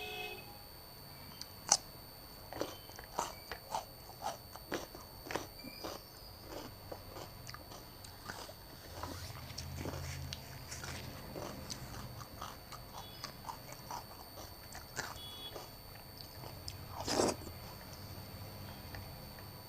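Close-miked eating: a person biting and chewing, with a string of sharp, crisp crunches and wet mouth clicks, and one louder crunch near the end.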